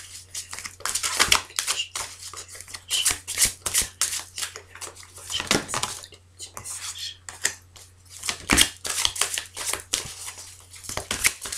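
A deck of tarot cards being shuffled by hand, with many quick irregular snaps and flicks of card on card. A faint steady low hum runs underneath.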